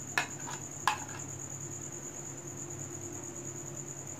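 Crickets trilling steadily in the background, while a spoon clinks twice against a ceramic bowl in the first second as mashed boiled potato is scraped in, followed by a few fainter taps.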